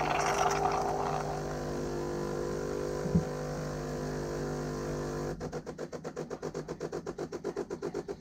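A motor running with a steady hum and a single click about three seconds in; about two-thirds of the way through it changes to a rapid, even pulsing, which stops abruptly at the end.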